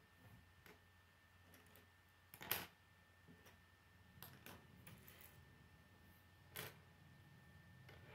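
Plastic K'nex pieces clicking as rods are snapped into connectors and set down on a wooden table. The light clicks are scattered, with the loudest about two and a half seconds in and another near the end.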